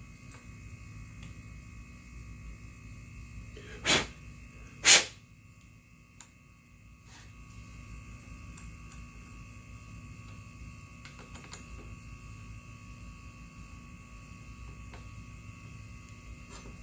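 Steady electrical mains hum, broken about four seconds in by two short, loud hissing bursts about a second apart.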